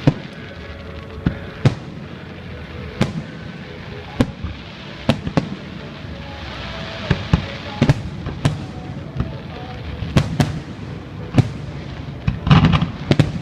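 Aerial fireworks bursting: a string of sharp bangs at irregular intervals, roughly one a second, then a quick cluster of bangs near the end.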